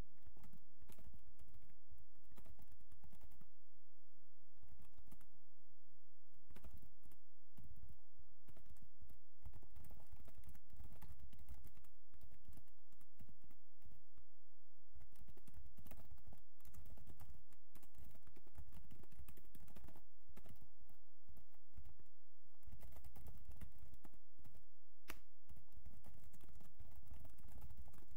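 Typing on a computer keyboard: uneven runs of quick key clicks with brief pauses between them.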